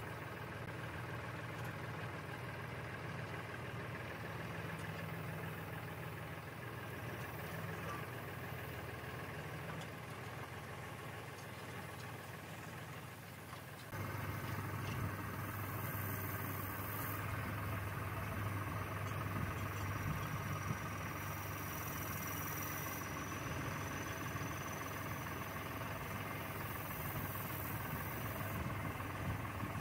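Diesel farm tractor engine running at a steady idle, a little louder from about halfway on.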